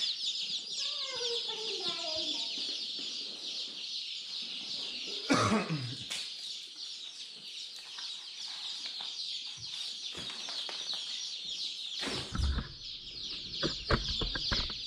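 A box of week-old chicks peeping constantly in a dense, high-pitched chorus of rapid chirps. A loud bump about five seconds in and a run of knocks and bumps near the end come from the cardboard box being handled and set down.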